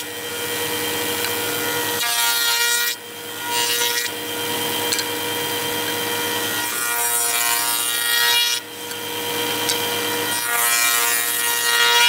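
A table-mounted router runs with a steady whine while a small wooden panel is fed by hand along the fence past the bit, cutting a raised-panel edge profile. The cutting noise swells as each edge is worked and drops away briefly about 3 and 8.5 seconds in.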